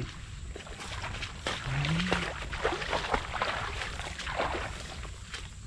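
Dry grass and stubble rustling and crackling as a person pushes through it and handles a bundle of stick snares, with a brief low hum from a man's voice about two seconds in.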